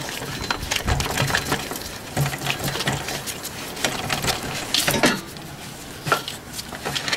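Scattered clicks, taps and light metallic rattles as a serpentine belt is worked by hand off the pulleys of a Toyota 2.4-litre engine, the belt and fingers knocking against engine-bay parts. The louder knocks come about a second in and about five seconds in.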